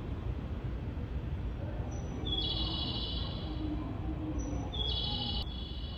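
Railway station ambience: a steady low rumble, with a high beeping chime of several steady notes sounding twice, about a second each.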